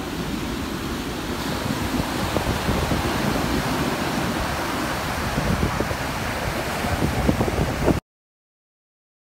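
Ocean surf breaking and washing up a sandy beach, a steady roar with wind buffeting the microphone in gusts; it cuts off suddenly near the end.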